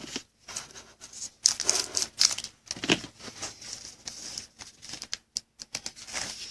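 Panini Prizm basketball trading cards being slid and flipped in the hand: irregular dry swishes and light clicks of card stock rubbing on card stock.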